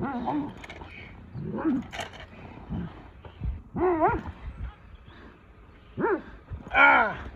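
Belgian Malinois protection dog giving loud, deep barks in about five separate bursts during protection work, the loudest near the end.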